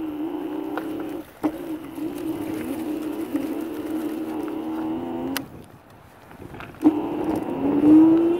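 Dual motors of a 60-volt G1 electric scooter whining under throttle: a steady tone that cuts off after about five seconds, then starts again and rises in pitch near the end.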